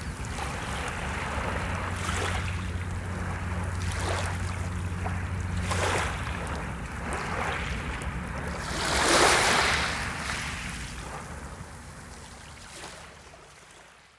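Gentle ocean waves washing in on the shore, with several swells in a row; the biggest breaks about nine seconds in, after which the sound fades away to nothing near the end.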